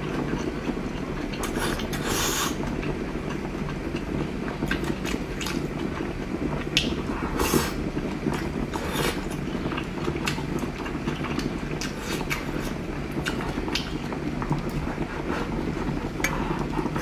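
Close-up eating sounds: chewing and slurping with many short scattered clicks and smacks, over a steady low hum.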